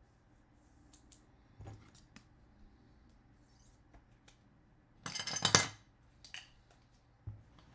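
Clear hard plastic trading-card case handled by hand: a few light clicks, then a louder rapid clatter of plastic about five seconds in lasting under a second, another click, and a soft knock near the end.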